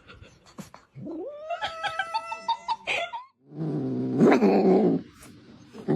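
Domestic cat caterwauling twice. About a second in comes a long, high yowl that rises and then holds; after a short gap comes a lower, rougher yowl.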